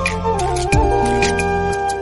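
Background music: a held, stepping melody over a repeating bass line, with light percussion ticks.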